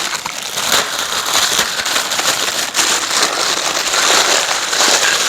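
Plastic packaging bags of small greenhouse frame parts crinkling and rustling continuously as they are handled, with fine clicks of the pieces knocking together.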